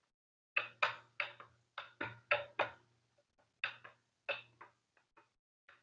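Rolling pin being rolled back and forth over dough on a silicone mat, knocking against the work surface: a quick run of about eight knocks, then a few more spaced farther apart.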